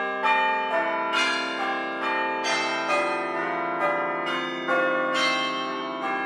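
A peal of bells struck in a quick, uneven sequence of about two strikes a second, each ringing on under the next: the timer's end-of-sprint alarm, signalling that time is up.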